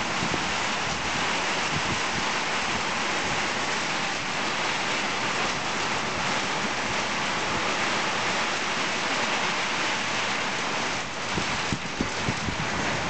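Heavy rain pouring down in a steady hiss, a downpour falling on the street and trees.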